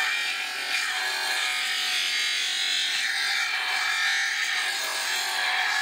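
Lapidary flat-lap machine running, a cabochon stone held against its spinning water-fed abrasive disc and being ground: a steady grinding hiss.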